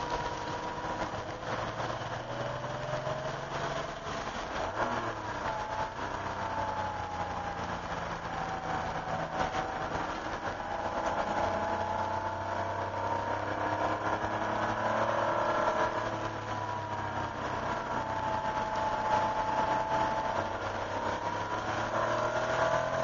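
1988 Porsche 911's air-cooled flat-six heard from inside the cabin, pulling through slow corners, its pitch rising and falling with the throttle. It gets louder in the second half as the car speeds up.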